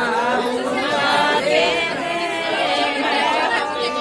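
A group of women singing a folk song of the tilak ceremony together, unaccompanied, their voices overlapping in long held lines.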